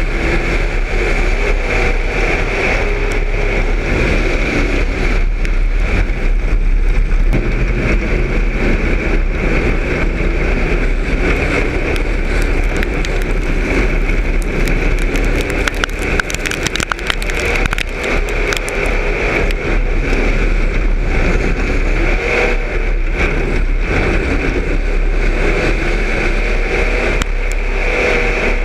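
Street stock race car's engine running hard at racing speed, heard from inside the cockpit, its pitch rising and falling with the throttle through the corners. A run of sharp clicks and rattles comes around the middle.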